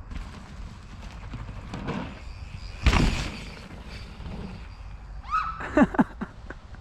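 Mountain bike riding a dirt jump: a loud thump about three seconds in as it lands, then several short squeals that fall in pitch near the end.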